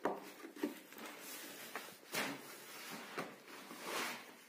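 Handling noise of a woven plastic fertiliser sack being carried: a few sharp knocks and scuffs, with longer rustles about two seconds in and again near the end.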